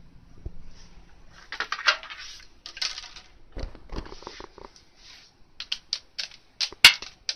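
Cats playing: a few bursts of scratchy rustling and scrabbling, then a quick run of sharp clicks and taps near the end.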